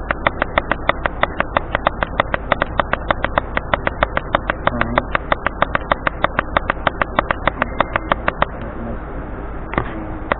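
A rapid, even clicking, about seven clicks a second, that stops about eight and a half seconds in.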